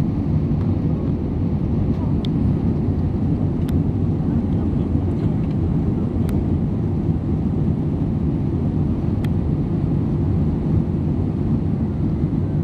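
Steady low rumble of an airliner's engines and rushing airflow, heard from inside the passenger cabin while the aircraft climbs after take-off. A few faint ticks sound over it.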